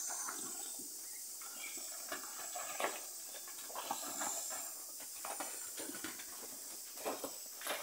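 Cattle shuffling and moving about in a crowded shed: scattered hoof knocks and rustles on the dirt floor, a few louder knocks near the middle and near the end. A steady high insect hiss sits behind.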